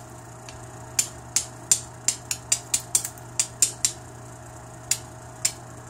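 Sharp clicks of a hammer stone brushed lightly downward against the edge of an obsidian flake, knocking off small flakes to shape a preform; light strikes, so the flakes don't hinge. About a dozen quick, irregular clicks come in the first four seconds, then two more spaced out near the end.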